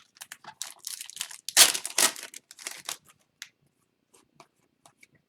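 A foil pack of hockey trading cards being torn open and crinkled, with the loudest tear about one and a half seconds in. After about three seconds only faint scattered ticks are left.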